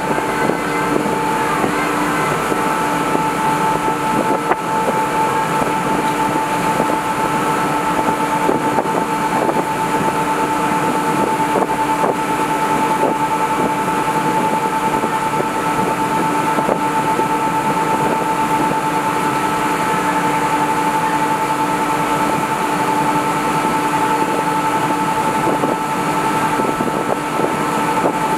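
Boat engines running steadily at cruising speed, a constant drone with an unchanging high whine, over rushing water and wind on the microphone.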